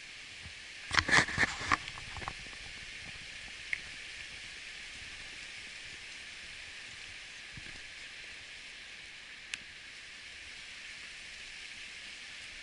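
Steady rushing of a creek. About a second in, a quick run of five or six sharp knocks stands out above it, followed later by a couple of single faint clicks.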